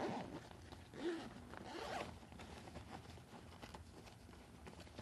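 Zipper on a fabric backpack pocket being pulled, with a rasp at the start and another about one to two seconds in, followed by softer handling of the bag.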